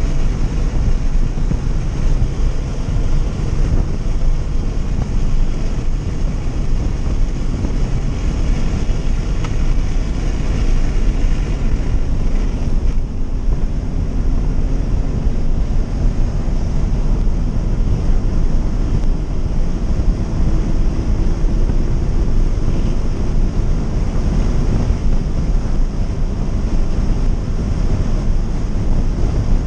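In-cabin sound of a Scion FR-S lapping a track: its 2.0-litre flat-four engine running under load beneath a heavy, steady rumble of road and wind noise. It eases briefly about halfway through, and the engine note rises faintly afterwards.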